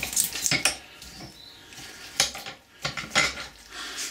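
Metal clinks and clanks from a bench vise, a steel socket and a bearing carrier being handled as a ball bearing is pressed into the carrier in the vise and the parts are taken out. A cluster of clinks comes near the start, with single louder ones about two and about three seconds in.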